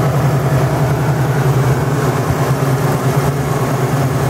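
A 1969 Ford Mustang's 429 big-block V8 idling steadily.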